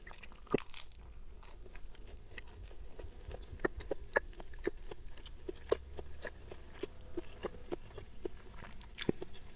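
Close-up mouth sounds of a person chewing a mouthful that begins with a bite of crisp lettuce leaf: soft, irregular crunches and wet clicks, several to a second.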